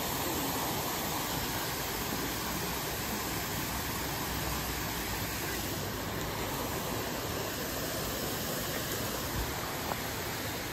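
Steady rushing noise of water pouring over a spillway.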